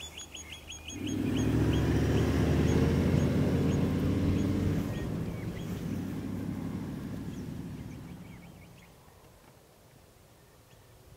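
A vehicle's engine drone swells up about a second in, stays loud for a few seconds, then fades away as the vehicle moves off. A bird chirps rapidly at the start.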